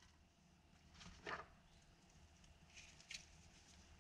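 Near silence: room tone with a faint soft knock about a second in and a faint tick near the end, small handling sounds of tools on sheet metal.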